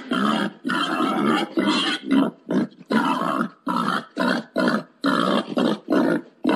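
Wild boar grunting in a rapid, unbroken series of short, harsh grunts, about two a second: a boar's mating call.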